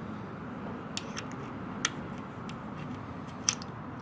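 A few sharp clicks of coins going into a water vending machine's coin slot and dropping through the coin mechanism, the loudest a little under two seconds in, over a steady low hum.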